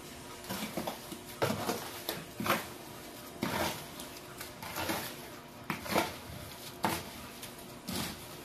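Steel hand trowel scraping and working wet concrete on a floor being poured, in repeated short strokes, one or two a second.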